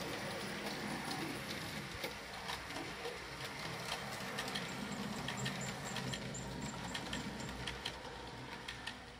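Model train running along the track: a 2-6-6-2 articulated steam locomotive model pulling passenger coaches, with a steady small-motor hum and scattered clicks of wheels over rail joints. It fades a little near the end as the train moves away.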